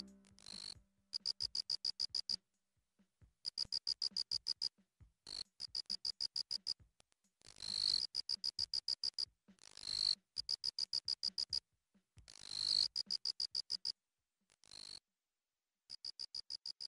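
Cricket chirping: repeated trains of fast, high-pitched pulses, about ten a second and each lasting roughly a second, separated by short pauses. Each train begins with a brief swell of hiss.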